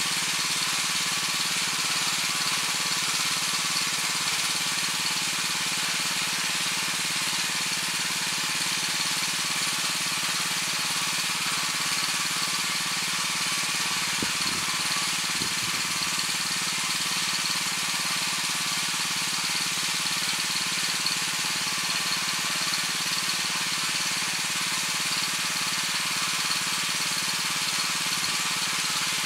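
Weima WM 900 walk-behind tiller with its 7 hp engine running steadily under load while its rotary tines churn the soil. A couple of brief low knocks come about halfway through.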